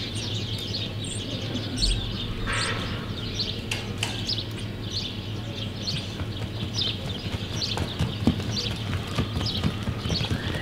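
Hoofbeats of a reining horse spinning and stopping in soft arena dirt, with a few sharp thuds, over small birds chirping throughout and a steady low hum.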